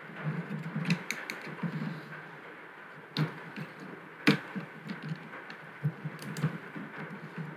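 Small screwdriver prying at the glued-down metal bezel plate of a SwissMicros DM42 calculator, its tip clicking and scraping against the metal and plastic housing in light, irregular clicks. The sharpest clicks come about three and four seconds in.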